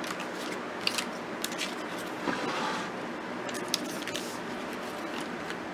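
Paper being handled on a desk: soft rustling of a paper envelope and a decorative paper strip as they are moved and laid down, with a few light taps and clicks.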